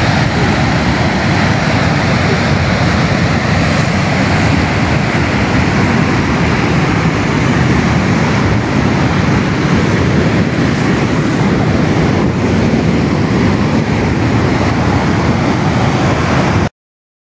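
Muddy flash-flood torrent rushing down a rocky mountain channel: a loud, steady rush of churning water and mud that cuts off suddenly near the end.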